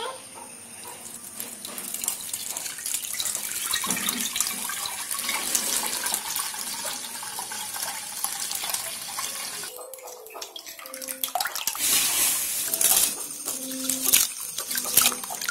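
Green juice of ground fresh herbs poured in a steady stream through a plastic mesh strainer into a pressure cooker. About ten seconds in the pouring stops, and hands then swish and splash rice in water in a steel bowl.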